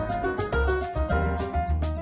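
Background music with a steady bass beat and repeated plucked or struck notes.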